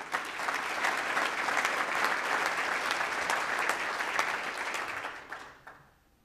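An audience applauding, many hands clapping at once, dying away near the end.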